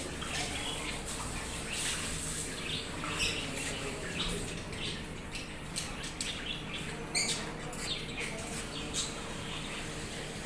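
A mixed group of caged pet birds (budgerigars, lovebirds and Java sparrows among them) chirping continually, many quick high calls overlapping.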